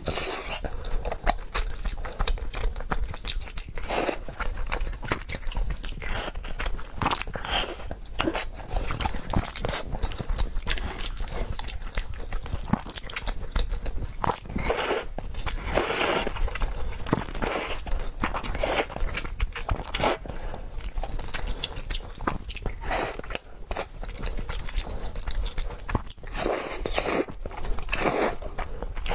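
Close-miked eating of braised pork belly and thick noodles: many wet mouth clicks and chewing smacks, with several longer, louder slurps.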